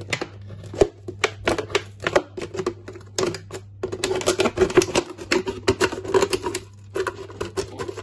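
Scissors cutting around a thin plastic drinks bottle: a rapid, irregular run of crisp snips with the plastic crackling between them.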